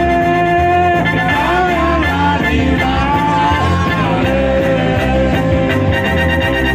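Loud dance music: a singer holding long, gliding notes over a steady, repeating bass beat.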